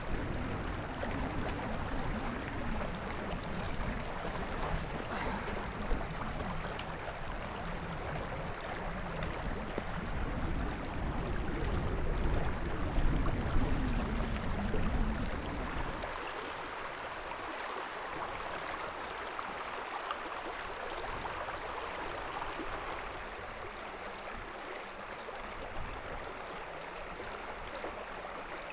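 Steady rush of a shallow, muddy river flowing over its bed, with wind buffeting the microphone as a low rumble for the first half; about sixteen seconds in the wind drops away and only the water's rush remains.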